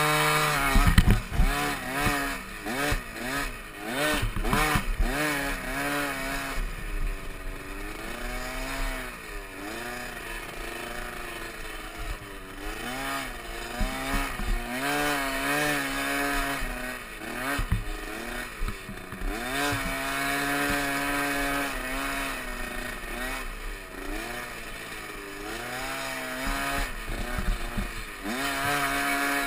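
Small youth dirt bike engine being ridden up a rough trail, its pitch rising and falling over and over as the throttle is opened and closed. Sharp knocks and rattles come from the bumps in the first couple of seconds.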